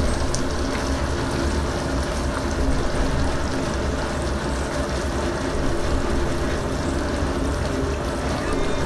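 A pot of tomato sauce simmering on a gas hob: steady bubbling with a low rumble underneath.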